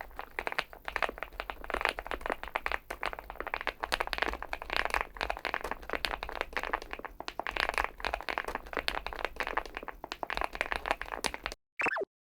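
Fast typing on a Weikav Stars80 aluminium, gasket-mounted TKL mechanical keyboard: a dense, uneven run of keystrokes with the deep 'kotokoto' thock the board is known for. Near the end a short falling tone sounds, and then the sound cuts off.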